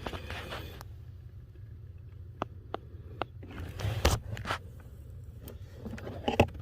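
A removed plastic blower fan cage being handled and turned over: a short rustle at the start, then scattered light clicks and taps, with a cluster about four seconds in and a sharper pair near the end, over a steady low rumble.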